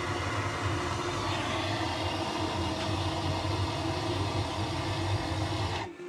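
Handheld gas torch burning steadily as its flame is held into the cardboard and kindling in a wood stove's firebox to light it, a continuous rumbling hiss that cuts off suddenly near the end when the torch is shut off.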